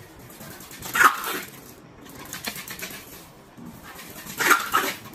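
Small puppy barking in short, sharp yaps: one about a second in, a fainter one a little later, then two in quick succession near the end.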